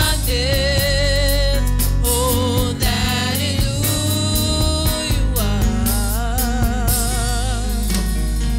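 Live gospel worship song: a woman sings the lead melody, holding notes with vibrato, over a drum kit and electric bass.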